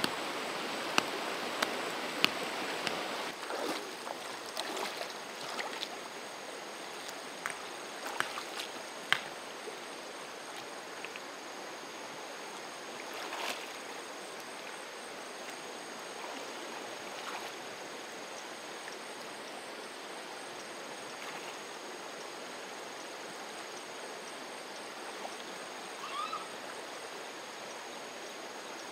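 Water running steadily, with scattered sharp clicks and knocks over the first ten seconds or so and a faint steady high tone underneath.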